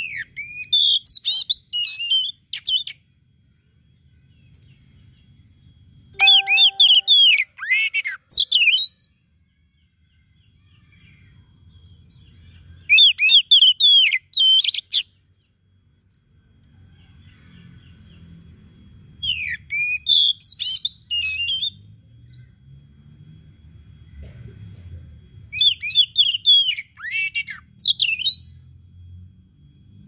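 Oriental magpie-robin (kacer) singing: five bursts of loud, varied, rapid whistled phrases with sweeping notes, each two to three seconds long and a few seconds apart. A faint steady high tone runs beneath.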